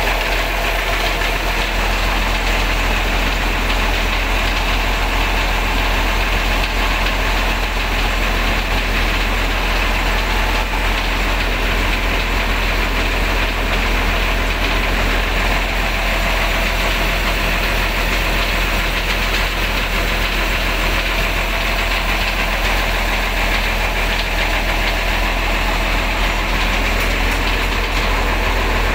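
Bus diesel engine idling steadily, a constant low hum with no change in speed.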